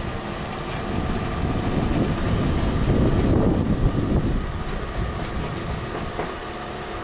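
Wind buffeting the microphone of a camera mounted on a moving car-hauler trailer, over the trailer's rattle and rumble. A stronger gust swells about two seconds in and eases off about four and a half seconds in.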